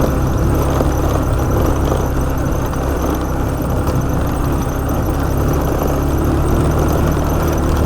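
Motorcycle engine running steadily while riding, with a dense low rumble of wind noise on the microphone.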